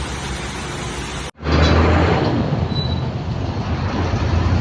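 Steady running noise of a motor vehicle. The sound breaks off abruptly about a second in, then returns louder with a deep, steady low hum.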